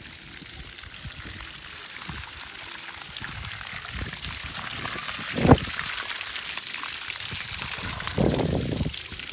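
A stream of water pouring from a crocodile-shaped spout and splashing into a shallow concrete trough, a steady splashing hiss that grows louder over the first few seconds. A single sharp thump comes about halfway through.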